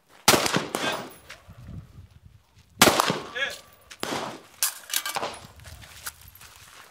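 Rifle shots from an 11.5-inch short-barrelled AR-15 carbine (CAR-15 clone), about six single shots at uneven spacing, two within the first second and the rest between about three and five seconds in.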